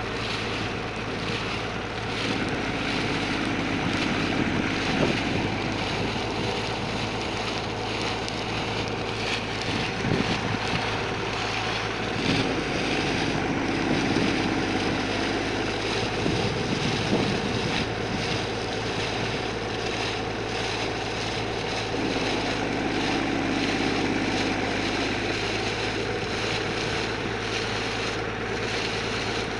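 Steady machine noise: a motor humming under a continuous hissing rush, with a lower drone swelling in three times, a few seconds in, around the middle and near the end.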